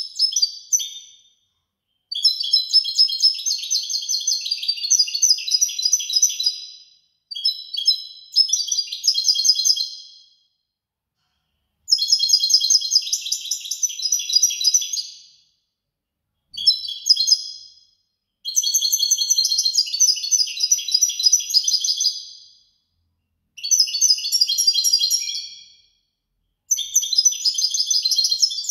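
European goldfinch singing: phrase after phrase of rapid, high twittering song, each one to four seconds long, with short pauses between.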